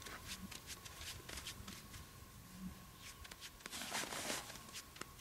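Faint, irregular small clicks and rustles from a short ice-fishing rod and reel being handled while jigging a balance lure, with a couple of slightly louder soft knocks about four seconds in.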